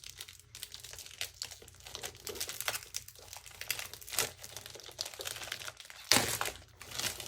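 Packaging crinkling and tearing as it is worked off a hardcover planner, in irregular crackles with a louder rip about six seconds in.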